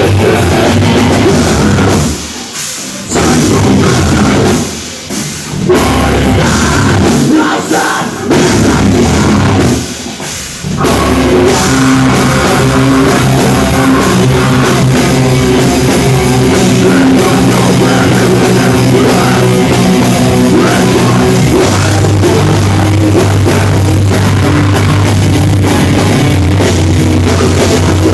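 Live metal/hardcore band playing loud drums and guitars with vocals. Four short stop-start breaks come in the first ten seconds or so, then the full band plays on without a break.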